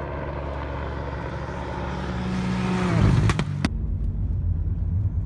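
A rally car's engine racing toward the listener on a gravel stage, getting louder and rising in pitch, then passing about three seconds in with a drop in pitch and a few sharp cracks. The sound then cuts abruptly to a steady low engine drone heard from inside a car.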